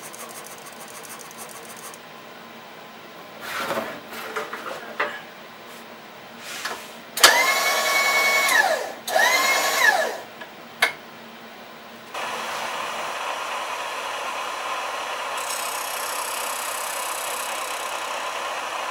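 Milling machine spindle started and stopped twice in quick succession, each time a whine that rises, holds and falls away as it coasts down. It then starts again and runs steadily. A few clicks and knocks from handling the machine come before the first start.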